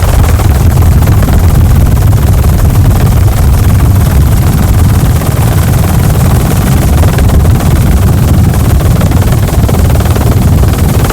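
Helicopter cabin noise heard from aboard in flight: rotor and turbine engine running steadily and loudly, the sound heavy in the low end with no pauses.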